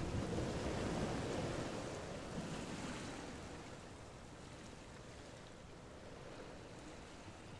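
Steady rushing wind, fading gradually.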